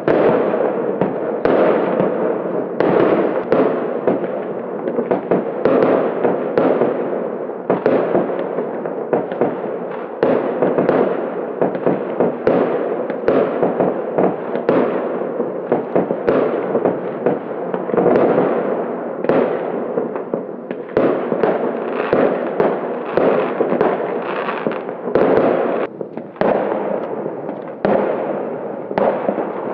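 Fireworks going off one after another: a steady run of sharp bangs, about one or two a second, over continuous crackling.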